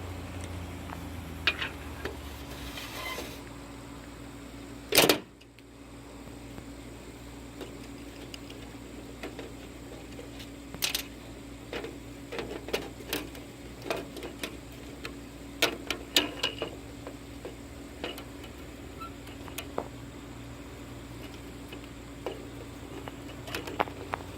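Scattered light clicks and taps of small hard parts being handled, with one loud sharp snap about five seconds in, over a steady electrical hum.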